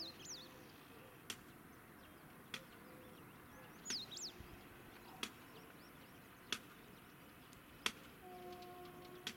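Quiet open-air ambience: a bird gives quick falling whistles at the start and again about four seconds in, while sharp ticks come steadily about every second and a half. Near the end a faint steady horn note sounds from the distant ALCo WDM3A diesel locomotives.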